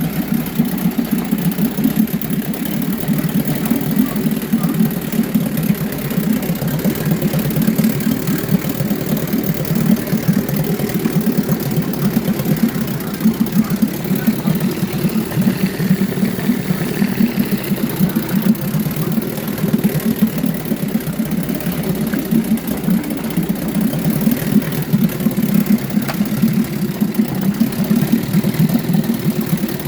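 1953 Scott-Atwater Gold Pennant 7½ hp two-stroke outboard motor idling steadily and evenly, with no lean sneeze, its top crankshaft seal and cracked cylinder head freshly replaced.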